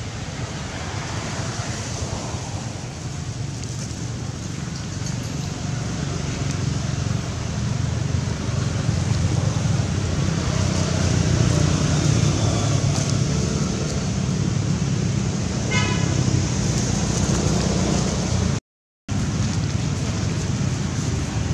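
Steady outdoor background rumble and hiss, like distant road traffic, with a heavy low rumble that grows louder about a third of the way in. It cuts out completely for a moment near the end.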